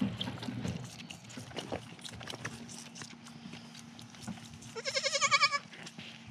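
A baby goat bleats once, about five seconds in: a single wavering call lasting under a second. Faint clicks and shuffling sounds surround it.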